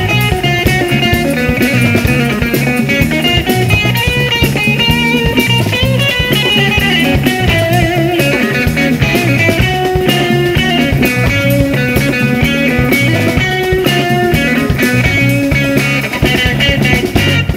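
Instrumental funk played live by a band: electric guitar lines over bass guitar and a drum kit keeping a steady groove.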